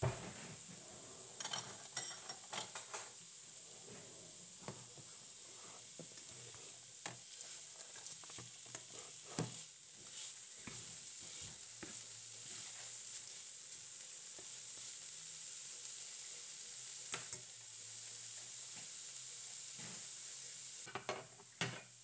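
Food sizzling steadily in a frying pan while a plastic spatula stirs it, scraping and knocking against the pan now and then. Near the end there is a short cluster of knocks, and the sizzle falls away.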